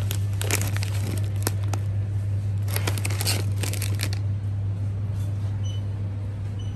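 Plastic snack packet crinkling as it is handled, in two short spells of crackling during the first four seconds, over a steady low hum.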